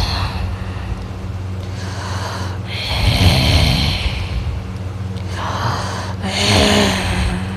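A man snoring in his sleep: two long snores about three seconds apart, one about three seconds in and one near the end, over a steady low hum.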